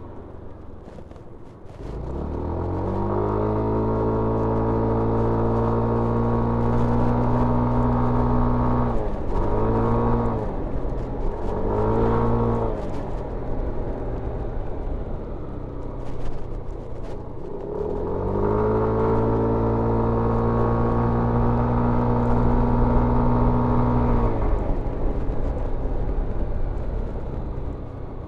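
2021 Yamaha NMAX 125 scooter's single-cylinder four-stroke engine and stock exhaust under way. About two seconds in it revs up and holds one steady pitch, dips and comes back twice in quick succession, falls away, then revs up again to a steady pitch and eases off near the end.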